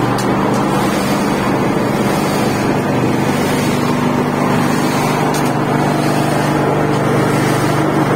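Steady, loud drone of concrete-making machinery running: the motor-driven drum concrete mixer turning, with a constant low hum.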